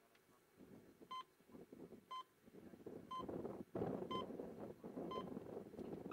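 Electronic race start timer beeping a countdown: five short, identical beeps, one each second, the signal for the rider to launch from the start gate. A noisy background grows louder under the beeps.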